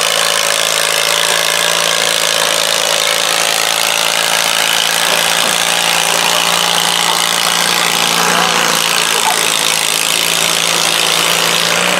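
Allis-Chalmers garden tractor engine running at steady high speed under load as it pulls a weight-transfer sled, with a steady, even pitch throughout.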